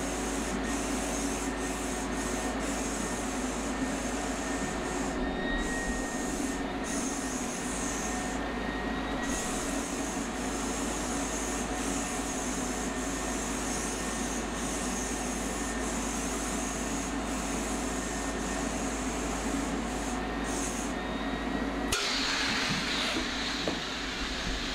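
HVLP turbine paint sprayer running steadily under the hiss of the air-fed spray gun, with the hiss cutting out briefly a few times as the trigger is let off. About three seconds before the end the sound shifts and grows slightly louder.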